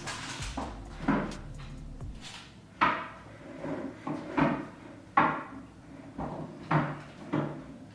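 A series of wooden knocks and clunks from flat-pack furniture being handled and shifted into place, about one every second, each with a short ring.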